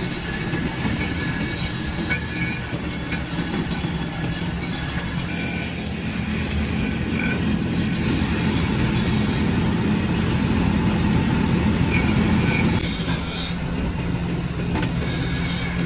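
Pillar drill press running, its bit drilling holes in cast aluminium fries-cutter parts: a steady motor hum with the noise of the bit cutting the metal, louder for a few seconds past the middle and dropping back about thirteen seconds in.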